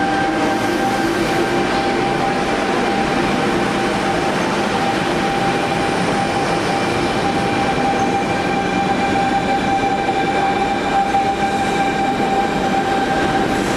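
A train running: a steady rumble and rail noise with a steady whine over it.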